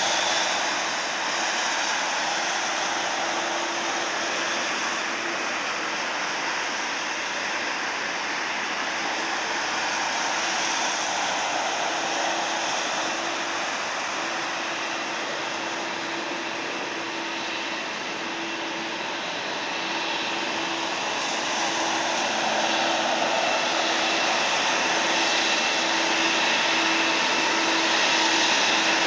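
Boeing 777's twin Pratt & Whitney PW4000-series turbofans running at low power as the airliner slows and taxis: a steady jet rumble with a droning mid-pitch tone. It grows louder over the last few seconds, with a thin high fan whine coming in as the engines turn to face the listener.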